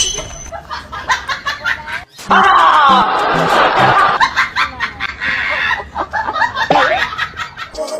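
Laughter in rapid short bursts, with a wavering high-pitched vocal stretch about two seconds in and a brief rising cry near the end.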